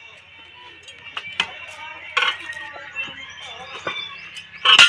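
Metal tyre levers and tools clinking and knocking against a small tractor front wheel as the tyre is worked on, in a series of separate sharp hits, the loudest a heavy knock near the end.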